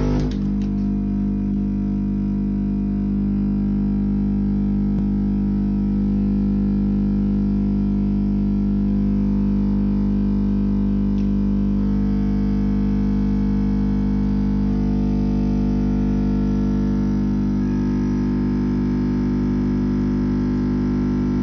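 Powered VEVOR weighing and filling machine giving off a loud, steady electrical hum with a buzzing edge. Its higher overtones shift slightly a few times.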